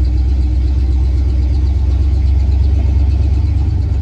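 Classic Ford pickup truck's engine running, heard from inside the cab as a steady low rumble.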